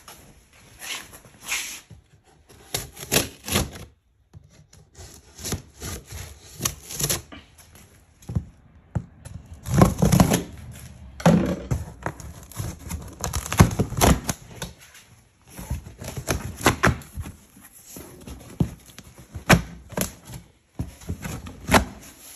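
A cardboard shipping box being opened by hand: a blade cutting along the packing tape and the cardboard flaps scraping and rubbing in irregular strokes, loudest about halfway through.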